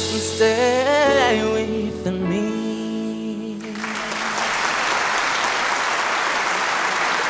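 A solo singer ends a slow ballad line with a wavering vocal run over held instrumental chords. The music stops about three and a half seconds in, and audience applause takes over.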